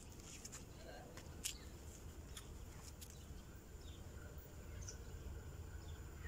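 Faint outdoor ambience: a low steady rumble under a thin, steady high tone, with scattered short bird chirps and clicks.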